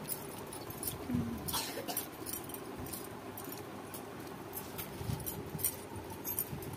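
Eating by hand from steel plates: scattered small clicks and clinks of fingers, bangles and stainless-steel dishes, over a low background.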